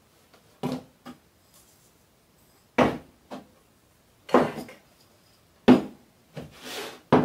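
A series of sharp knocks and clunks, about eight in all, some with a short ring: spice containers and a cup set down and moved on a wooden kitchen worktop beside a glass jar.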